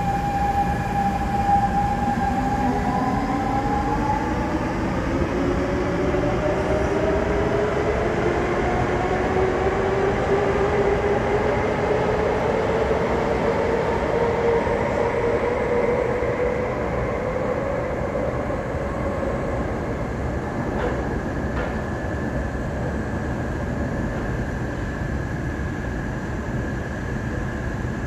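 SMRT underground metro train pulling away and gathering speed. Its electric traction motors give a whine of several tones that climbs steadily in pitch for about sixteen seconds, then fades as the train runs off into the tunnel, over a steady rumble.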